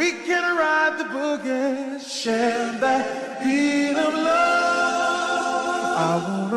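Unaccompanied sung vocals, a capella, holding long notes that slide between pitches, with no instruments underneath.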